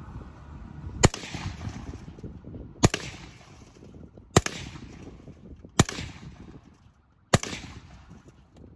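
Five single rifle shots from an AR-style rifle, spaced about one and a half seconds apart, each with a short echo.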